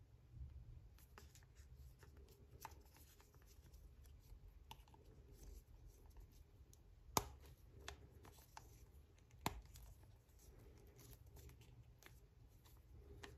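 Small plastic figure parts being handled and fitted together: faint rubbing and light ticks, with two sharp clicks a little past the middle and again about two seconds later as the PVC head is pressed onto the Nendoroid body.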